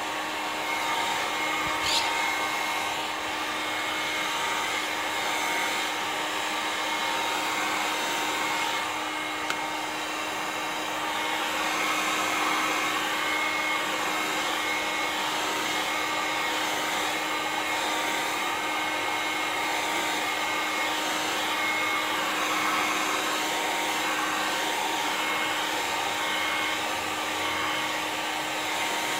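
Gamma handheld heat gun blowing hot air steadily onto a flat sheet of PVC, heating it until it goes soft and flexible for bending: a steady rush of air with a steady whine. A single click about two seconds in.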